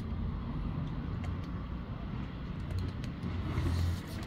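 Steady low rumble of street traffic, with faint scattered small clicks of cats crunching dry kibble; the rumble swells briefly near the end.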